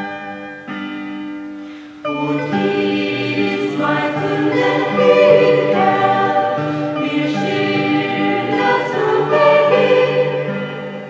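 Choir singing a German folk mass with instrumental accompaniment. A few quieter instrumental notes come first, and the full choir comes in about two seconds in.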